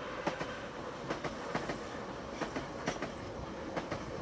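Tbilisi Metro electric train passing close by. Its wheels click over the rails in quick pairs, roughly once a second, over a steady running whine.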